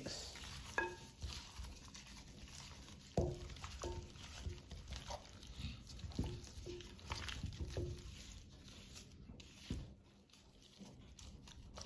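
Gloved hands mixing raw turkey wings with wet seasoning and olive oil in a glass bowl: irregular soft squelching of the coated meat, with short squeaks scattered through.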